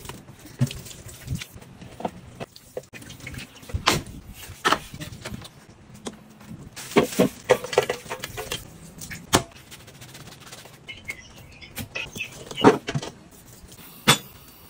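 Kitchen handling sounds: a run of separate knocks and clatters against a stainless steel pot and bowl, with running tap water and splashing as raw beef tripe is washed by hand in the sink.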